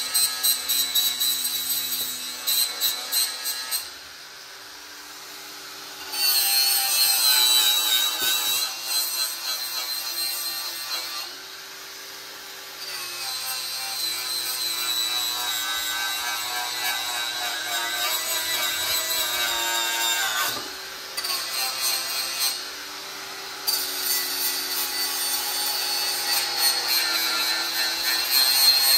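Milwaukee cordless grinder with a metal-cleaning attachment running against the sheet steel of a VW Beetle engine's fan shroud, stripping it to bare metal ready for TIG welding. It goes in several long runs with short pauses between them, its high whine wavering as it works.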